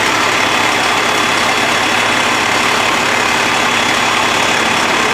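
Fire truck engine idling steadily.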